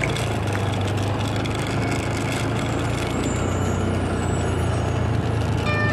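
Small motorcycle engine running steadily while riding slowly along a dirt track, a constant low drone with road and wind noise.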